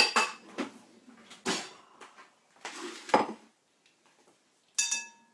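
Kitchen dishes clattering and knocking as a glass bowl is set down on the counter beside a tray of redcurrants, with a single ringing clink of glass near the end.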